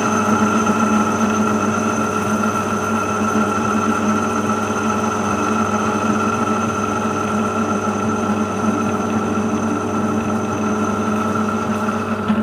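Metal lathe running steadily while turning aluminium stock, with a constant whine of several steady tones over a low hum.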